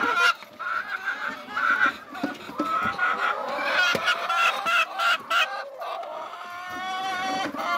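Hens clucking and calling in the nest boxes, short broken calls throughout, with a few sharp knocks from the nest boxes being handled. Near the end one bird gives a single long drawn-out call.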